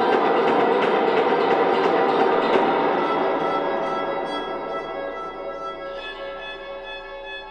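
Experimental live music: a dense, noisy wash of sound fades away over the first few seconds, leaving long held bowed-string notes on a few steady pitches.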